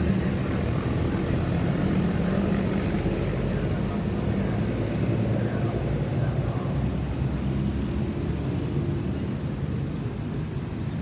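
Steady low rumble of vehicle engines and road traffic, without a siren.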